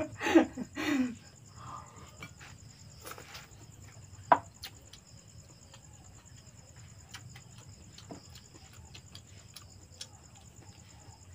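Crickets trilling steadily in the background, with scattered light clicks and taps from dishes and eating, and one sharper click about four seconds in.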